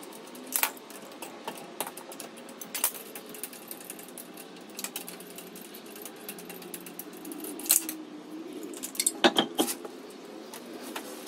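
Metallic clinks and clanks of a lug wrench and lug nuts as a car wheel is taken off, scattered every second or two over a steady hum, with a cluster of louder knocks about nine seconds in as the wheel comes off the hub.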